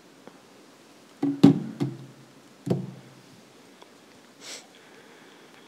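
A few loud, hollow knocks against the lectern, picked up by its microphone, each with a brief low ring: three close together about a second in and one more near three seconds. A short soft hiss follows near the end.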